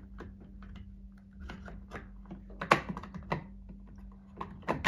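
Irregular light clicks and taps from hands working inside a sewing machine and tucking its cable. There is a sharper knock about two and a half seconds in and another near the end.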